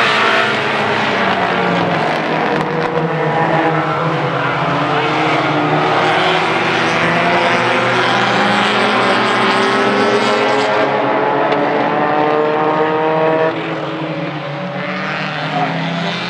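Small tuner-class hatchback race cars racing at full throttle, engines revving hard with their pitch rising and falling as they run by. About two-thirds of the way through, the sound thins and drops a little.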